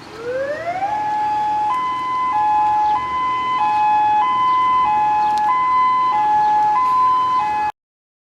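Electronic emergency alert siren tone: a pitch rising over about a second, then a two-tone hi-lo pattern alternating about every 0.6 seconds, cutting off abruptly near the end.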